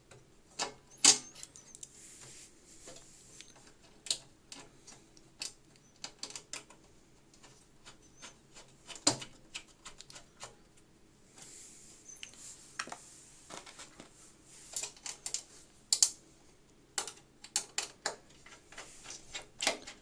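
Irregular sharp clicks and taps of a screwdriver and screws on the metal drive caddy and case of a desktop PC as the caddy screws are driven in.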